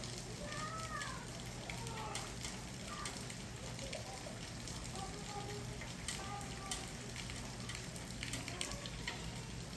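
Steady rain falling, with scattered sharp drop hits over a low steady hum. Faint distant voices come and go.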